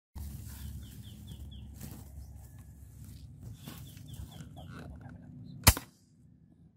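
A single sharp shot from a Betagunz PCP air rifle near the end, the loudest sound. Before it, quiet outdoor background with birds calling: two quick runs of four short, falling, whistled notes.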